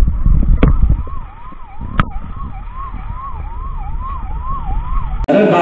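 Emergency-vehicle electronic siren from an oncoming official utility vehicle with a roof light bar, wailing up and down about twice a second. Heavy road rumble fades after about a second, and there are two sharp clicks. Near the end it cuts off abruptly to a man speaking.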